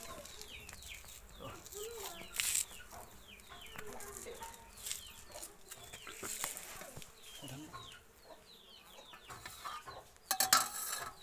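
Domestic chickens: a steady stream of short, high, downward-sliding peeps typical of chicks, with a few lower clucks. A brief loud rustling noise comes near the end.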